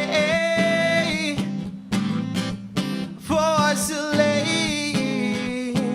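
A man singing a somber song to his own strummed acoustic guitar.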